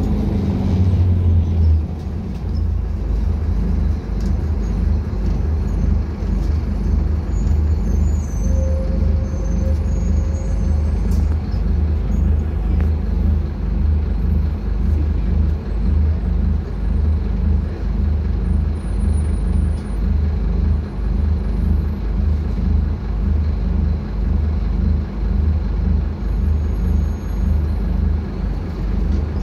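Scania K250UB city bus heard from inside the passenger cabin while under way: its diesel engine drones steadily with road noise, a little louder in the first two seconds.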